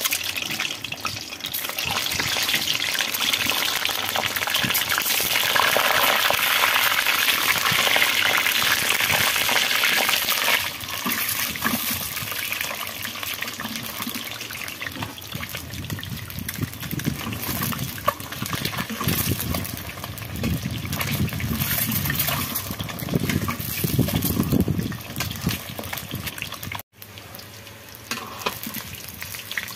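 Peeled hard-boiled eggs sizzling in hot oil in a metal kadhai, louder in the first ten seconds and then settling lower, with occasional clinks of a metal slotted spoon turning them.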